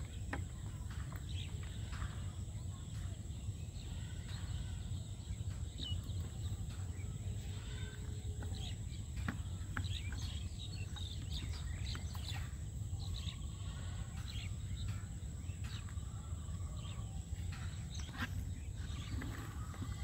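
Outdoor waterside ambience: scattered short bird chirps and calls over a steady low rumble.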